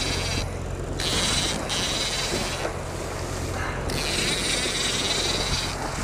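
Fishing reel being cranked in stop-start stretches, its gears whirring, over the steady hum of a boat engine.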